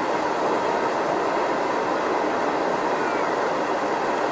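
Steady, even hiss and rumble of a narrow-gauge train hauled by a Lima-built Shay steam locomotive, heard from aboard one of its open cars while the locomotive vents a jet of steam.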